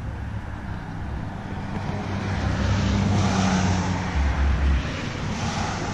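Road traffic: a car passing, its sound growing louder about halfway through and then fading, over a steady low engine hum.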